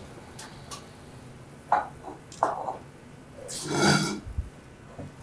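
Kitchen handling noises: a few light clicks and knocks, then one louder sound lasting about half a second, about three and a half seconds in.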